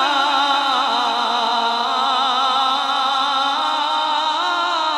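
A man singing a naat into a hand-held microphone, drawing out a long melismatic line whose pitch wavers and glides without breaking into words.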